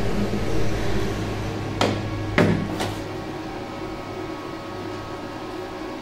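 Welded steel nut panels knocking against each other and the plywood base as they are set upright and pressed together by hand, three sharp knocks about two seconds in, over a steady low hum.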